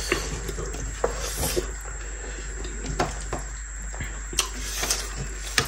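Eating by hand: mouth sounds of chewing, with a few scattered light clicks and taps as fingers mix rice on ceramic plates.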